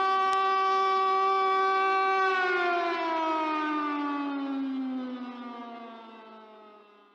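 Civil defense siren sounding a steady tone, then winding down in pitch from a little over two seconds in and fading out near the end.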